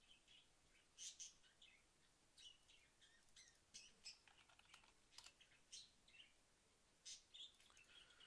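Faint, irregular clicks of computer keyboard keys being typed, a few keystrokes at a time with short pauses between.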